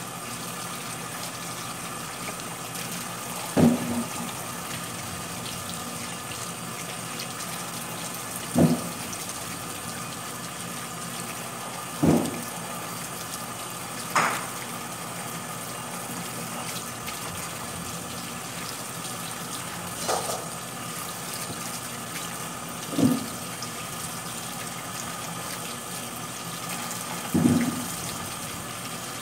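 Tap water running steadily into a kitchen sink full of small green limes as they are rinsed by hand. Seven short, louder sounds come a few seconds apart.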